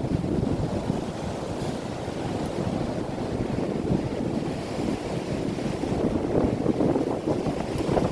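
Strong wind buffeting the microphone, a rough, gusting rumble that swells and eases and picks up again near the end.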